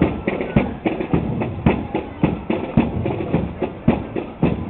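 Marching band drums beating a steady march rhythm, a strong beat about twice a second.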